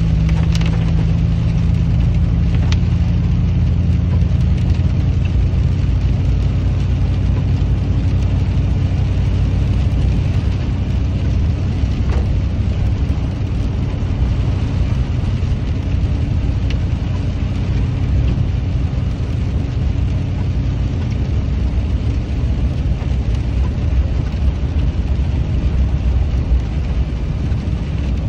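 Inside the cab of a 2008 Chevrolet Silverado 2500HD with the 6.0-litre gas V8, driving steadily: a low engine drone with road noise from the tyres on the slushy road, and a couple of faint ticks.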